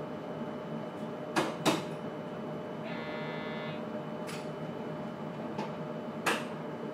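The cabin of a JR Kyushu 811 series electric train, with a steady equipment hum. Two sharp clunks come about a second and a half in, and a short pitched buzz follows about three seconds in. Another clunk comes near the end.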